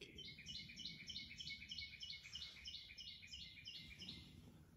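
Faint songbird song: a rapid run of repeated high chirping notes, about four a second, that stops about four seconds in.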